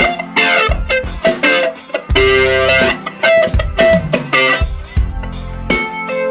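Electric guitar picking through chords with a mellow tone: an Epiphone Les Paul Gold Top into a mic'd Vox AC4TV amp. The signal runs through an Ibanez Tube Screamer Mini set to light overdrive, a Mooer E-lady flanger and a Donner Golden Tremolo at low depth.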